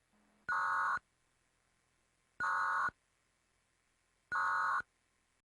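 Emergency Alert System end-of-message signal: three short bursts of buzzing digital data tones, about two seconds apart.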